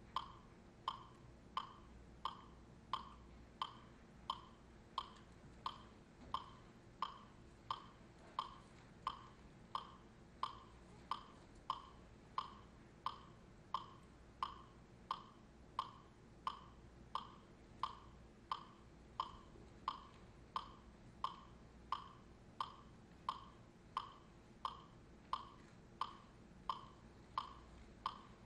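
A metronome ticking steadily, about two clicks a second, each a short, bright tock that dies away quickly.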